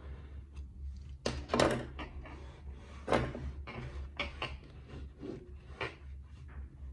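A knife cutting through packed kinetic sand, and the cut chunks being pulled away and set down on a tabletop: a string of soft crunching scrapes and knocks, the loudest about one and a half seconds in.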